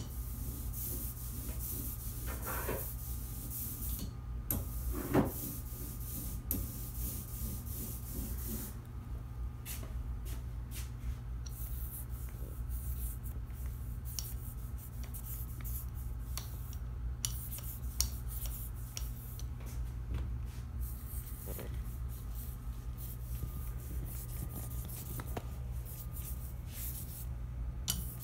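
Hands working a tabletop letterpress: rubbing and scraping with scattered light clicks and a couple of louder knocks, over a steady low hum.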